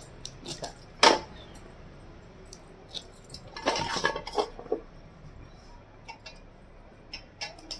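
Tamarind pods being peeled over a steel plate: brittle shells cracking and a small knife and pods clicking and clinking against the steel, with one sharp clink about a second in and a busier patch of cracking and scraping around the middle.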